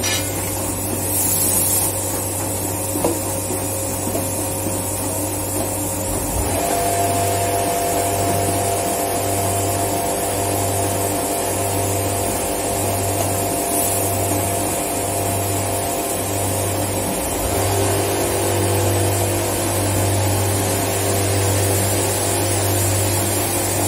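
Steady drone of plastic-processing machinery with a strong low hum. A brief rattle of plastic granules tipped from a bucket comes at the start. From about six seconds in, a higher steady tone joins and the hum throbs a little faster than once a second, then evens out again about seventeen seconds in.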